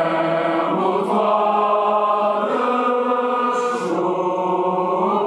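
A group of officer cadets singing a military song together in unison, holding long drawn-out notes.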